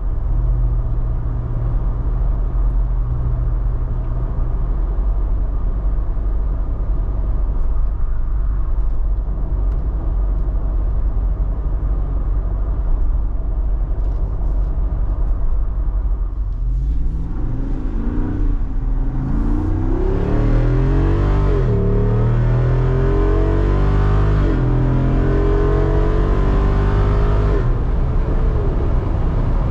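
Wrangler 392's 6.4-litre HEMI V8 running steadily at low revs, then from a little past halfway accelerating hard: the engine pitch climbs, drops and climbs again several times as it shifts up, before easing off near the end.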